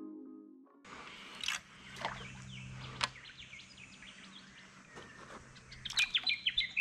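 Mallet-percussion music fades out in the first second, then quiet river ambience with small birds chirping and a few sharp clicks, the chirping busier near the end.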